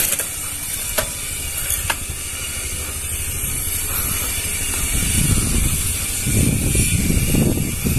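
Bicycle on the move: the freewheel ratchet clicks as the bike coasts, over a steady hiss of wind on the microphone. The low rumbling gusts grow stronger from about halfway through.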